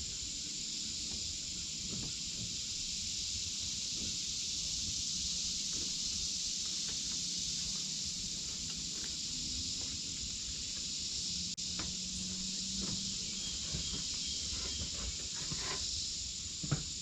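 Steady high-pitched chorus of crickets, with faint footsteps and rustling underneath and a few light knocks.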